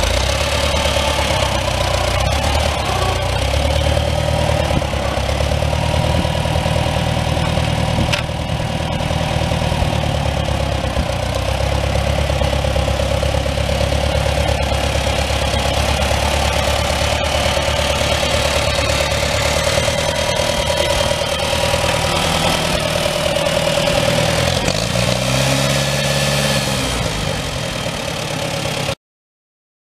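1956 Farmall 200 tractor's four-cylinder gasoline engine running steadily, with a brief rise and fall in engine pitch near the end.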